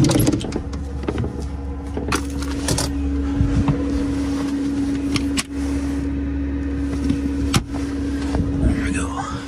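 A steady low hum runs throughout, briefly dropping out about five and a half seconds in. Over it come scattered knocks, clicks and rustles of someone moving about inside a camper van.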